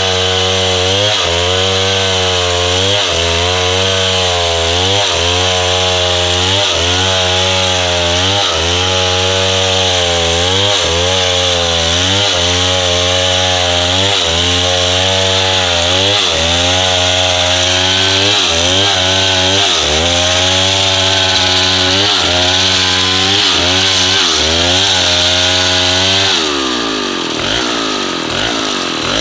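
Large Stihl chainsaw ripping a coconut palm log lengthwise into planks, its engine at full throttle under load, the note dipping and recovering about once a second as the bar is pushed through the wood. Near the end the throttle is released and the engine drops toward idle.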